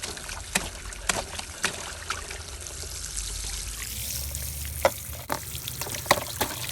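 Bath water trickling and splashing, with frequent sharp drips and plinks and a low steady hum underneath.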